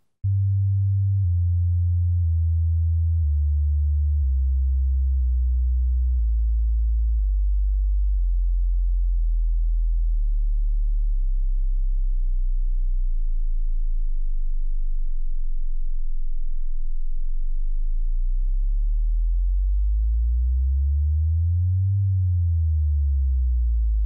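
A deep electronic sine tone that starts abruptly and glides slowly down in pitch, then holds low. Near the end a second low tone sweeps up and back down against it, giving a wavering beat.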